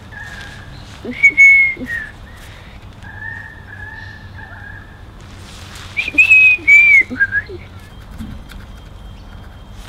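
A person whistling a tune: a string of clear, high held notes, some sliding in pitch, loudest about a second in and again about six seconds in.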